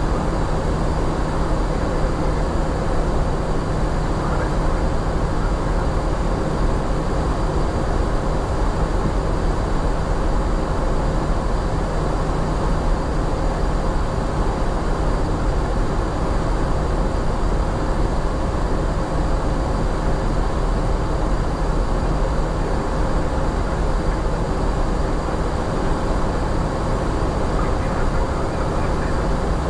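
Steady flight-deck noise of an Airbus A350-900: an even rush of air with a low, constant hum.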